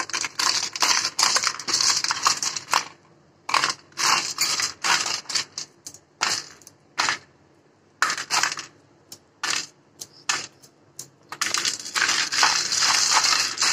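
Hands breaking apart clusters of set caramel-coated popcorn: crisp crackling and rustling as the stuck pieces come apart, with scattered light clicks as single pieces drop onto the plate. The crackling is dense for the first few seconds and again near the end, and sparse in between.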